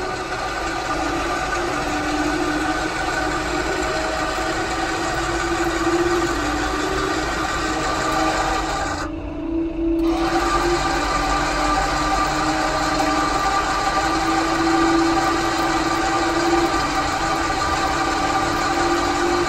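Electric motors of Autolift motorhome stabilizer legs running with a steady whine as the legs lower toward the ground. The sound drops out for about a second roughly nine seconds in, then carries on.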